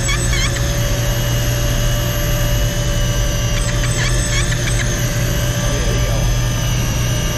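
Electric deep-drop fishing reel's motor running steadily as it winds line in, over a low steady drone. A cluster of short high squeaks comes in about four seconds in.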